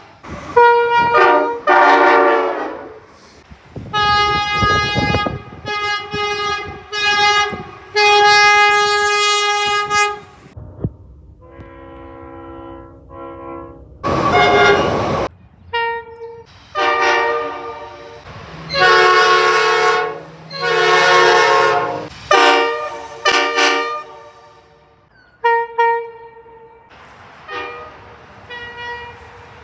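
Train horns sounding a long series of chord blasts, some short and some held for several seconds. The horns change in pitch and voicing from one blast to the next and cut in and out abruptly.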